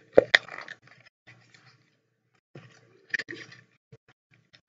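Small eyeshadow palette's packaging being handled and pried open by hand: scattered clicks and crinkles, loudest just after the start and in a second cluster around three seconds in.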